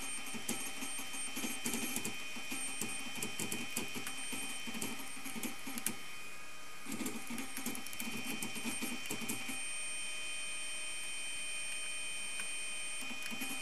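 Stepper motor running on a homemade driver board: an uneven buzzing and clicking stepping sound over a steady high whine. It drops out briefly about six seconds in, then resumes, and a higher steady tone sounds for a few seconds near the end.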